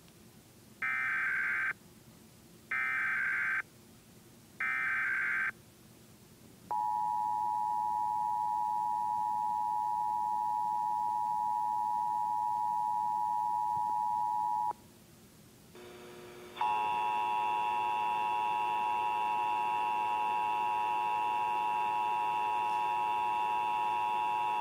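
Emergency Alert System Required Monthly Test tones. The digital SAME header squawks three times in short bursts about a second apart, then the two-tone attention signal (853 and 960 Hz) holds steadily for about eight seconds. After a brief gap, a second steady tone chord with many more tones mixed in starts and runs on.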